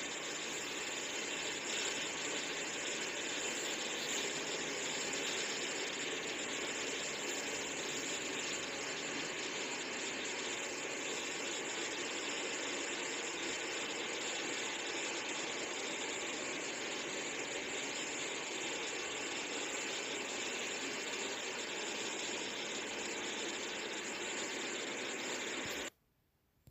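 Steady hissing noise with no speech, which cuts off suddenly near the end.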